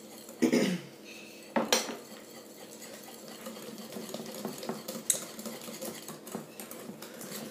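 Wire whisk beating a runny egg-and-cream batter in a glass mixing bowl: light, irregular clinking and scraping of the wires against the glass. Two louder knocks come in the first two seconds.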